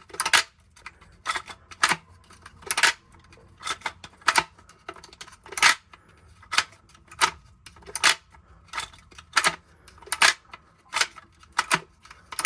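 Plastic brew group from a Philips espresso machine being worked up and down by hand to spread fresh grease, its parts clacking in a run of sharp clicks, about two a second.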